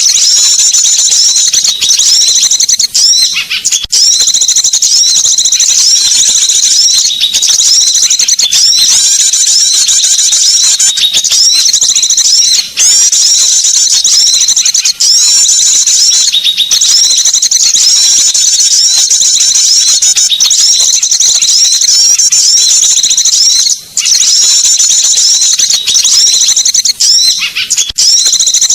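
Small songbirds' rapid, high-pitched trilling calls from a bird-lure (pikat) recording, made to attract small birds. The calls run almost without pause, with short breaks every few seconds.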